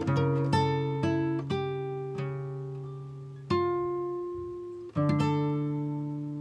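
Background acoustic guitar music: plucked notes and chords that ring out and fade, with new chords struck a few times.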